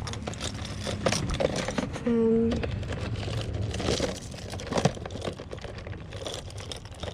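Costume jewelry being rummaged through in a box: bangles and necklaces clinking, with quick small clicks and rustling. A short voice-like tone comes about two seconds in.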